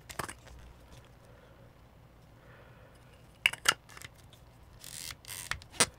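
Aperture ring of a Fujinon XF 30mm f/2.8 R LM WR Macro lens being turned by hand, its detents clicking in short quick runs about three and a half seconds in and again near the end.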